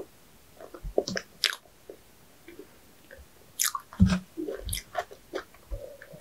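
Close-miked eating: a person biting and chewing food, with irregular short clicks and smacks from the mouth, the loudest about four seconds in.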